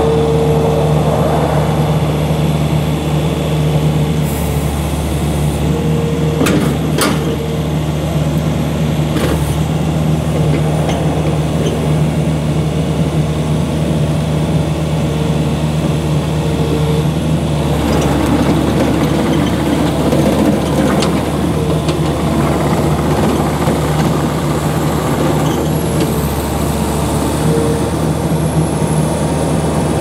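Takeuchi TL120 compact track loader's diesel engine running steadily under load as the machine drives and pivots on its rubber tracks over gravel, with a higher whine that comes and goes and a couple of sharp knocks in the first third.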